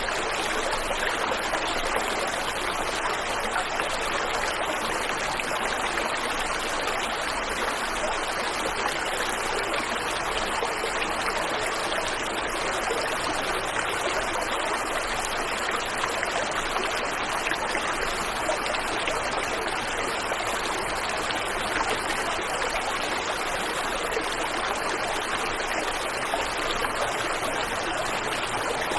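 Waterfall and river water rushing steadily, an even, unbroken noise of flowing water.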